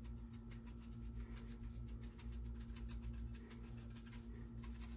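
Plastic black pepper grinder being twisted over the bowl, a rapid run of faint grinding clicks over a steady low hum.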